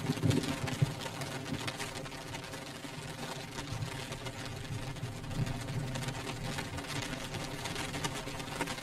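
Rain beating on a window pane: a dense, steady patter of drops on glass. A low rumble is loud at the start and fades within the first second.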